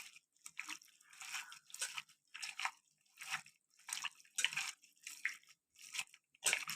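Raw chicken pieces being mixed into a thick marinade of spices, tomato paste, ginger-garlic paste, milk cream and oil, making wet squelching sounds. There are about a dozen squelches, a little under two a second.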